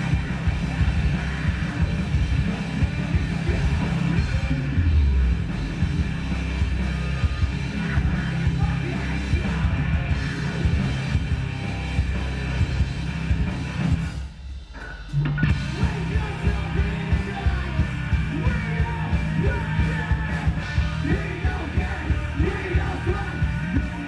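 Loud rock music with vocals. It drops out for about a second past the middle, then comes back on a steady, pulsing beat.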